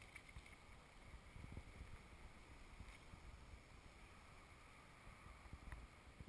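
Near silence: a faint, uneven low rumble of wind on the microphone.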